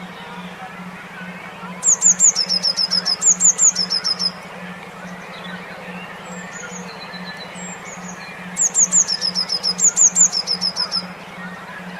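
A songbird singing two bouts of rapid, high, repeated chirps, with fainter calls between them. A low hum pulsing about four times a second runs underneath.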